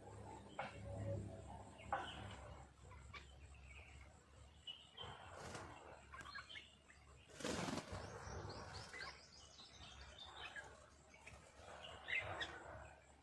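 Small birds chirping and calling intermittently, with a short rushing burst about seven and a half seconds in, followed by a quick run of chirps.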